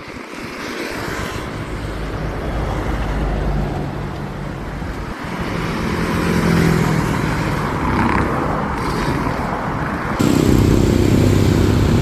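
A motor vehicle engine running amid road traffic noise, growing louder over the first several seconds, with an abrupt change to a louder sound about ten seconds in.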